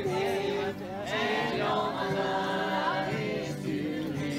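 A group of people singing together, unaccompanied voices holding long notes.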